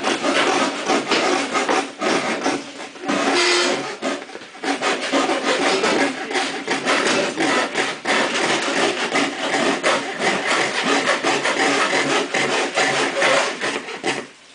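Small hand frame saw cutting through thick pressboard in rapid back-and-forth strokes, a steady rasping with brief pauses about two and four seconds in; the sawing stops just before the end.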